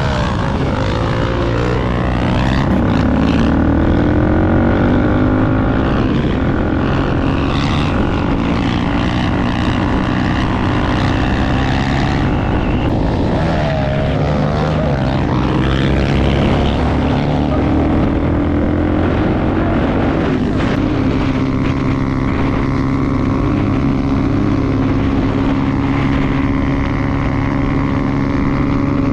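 Motorcycle engine running under way, its pitch rising and falling with throttle and gear changes.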